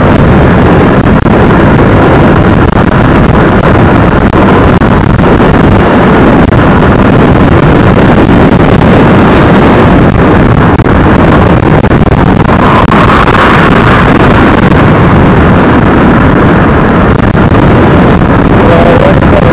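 Loud, steady wind rush over the microphone while riding a small motorcycle along a road, with the bike's engine and tyre noise underneath.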